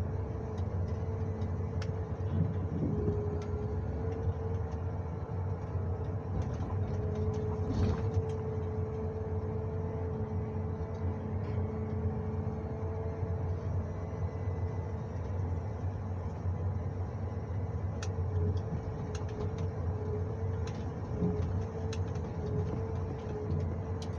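Engine and hydraulics of a John Deere 1910G forwarder running steadily during crane loading, heard from inside the cab: a low drone with a steady whine over it. Now and then a sharp knock or clatter, typical of logs and the grapple.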